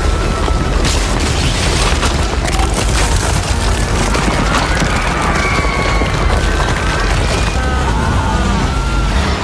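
A loud, continuous low rumble with crackling, like a large fire burning after an explosion. Faint wavering high tones come in over it about halfway through.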